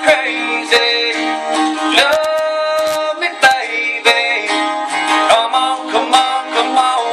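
Two acoustic guitars playing a country song together, strummed and picked, with a man singing.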